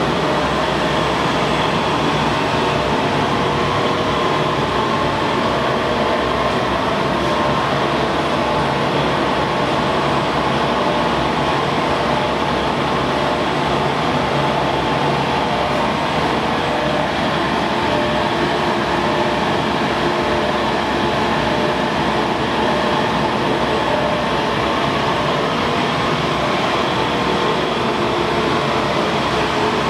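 Two-colour stack-type flexo printing press running steadily, its rollers and drive turning as the printed web feeds through, a constant mechanical noise with a faint steady hum.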